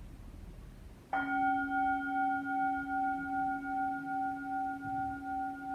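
A metal singing bowl struck once about a second in, then ringing on with a low hum and several higher overtones that waver slowly, about twice a second. The chime marks the close of the final relaxation (Shavasana).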